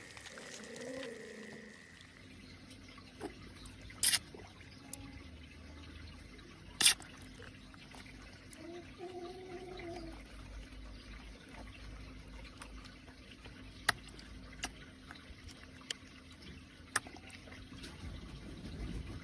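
Water trickling and dripping, with scattered sharp knocks. Two louder knocks come about four and seven seconds in.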